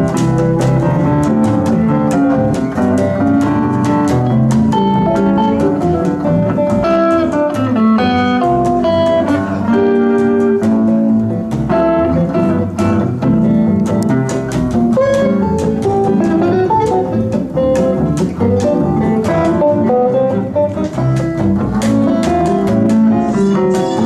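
Several guitars playing an instrumental tune together, a fast run of picked melody notes over a steady lower accompaniment.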